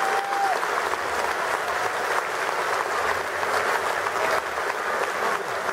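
Large crowd applauding steadily.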